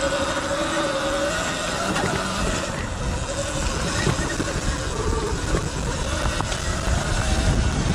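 Stock 60-volt Sur-Ron Light Bee L1E electric dirt bike riding a rocky dirt trail: a thin electric-motor whine that drifts in pitch with the throttle, under heavy wind buffeting on the helmet microphone and knobby tyres rolling over loose stones.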